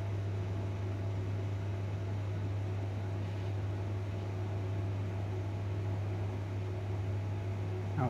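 Steady low mechanical hum with a faint even hiss, unchanging throughout.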